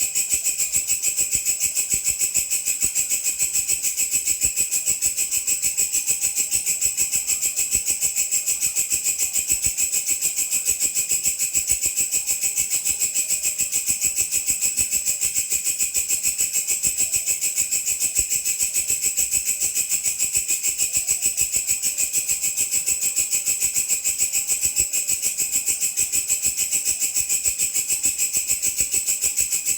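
Walang kecek, a katydid, singing continuously: a high-pitched chirring made of fast, evenly spaced pulses that does not pause.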